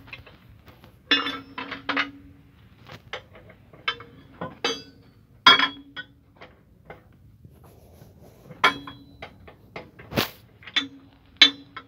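Steel tools knocking and clinking against the bolts and steel of an excavator's track chain guard, a socket wrench at work on the guard bolts. Irregular sharp metal knocks, several with a brief ringing, the loudest about five and a half and ten seconds in.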